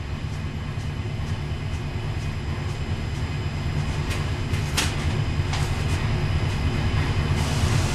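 A 418 cubic inch small-block Ford stroker V8 running on an engine dyno at a steady speed, a low rumble that slowly grows louder, with a few sharp clicks about halfway through.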